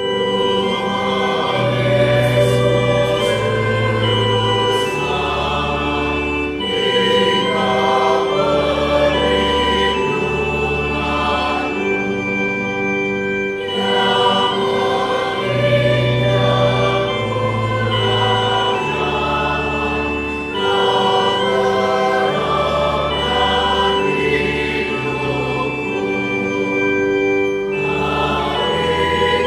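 Mixed four-part (SATB) church choir singing a slow hymn in Indonesian, with pipe-style organ accompaniment holding long bass notes underneath.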